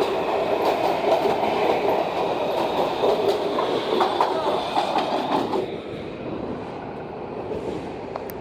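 Washington Metro train rolling along the platform, with wheel clatter and clicks over a steady rumble. The sound dies down noticeably about six seconds in.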